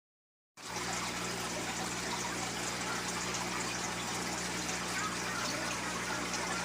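Steady running water with a low, steady hum under it, cutting in suddenly about half a second in.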